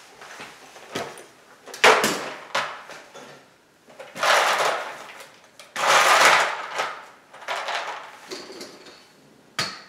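Hands rummaging through loose plastic LEGO pieces while searching for a lost part: several bursts of rattling and clicking with short pauses between.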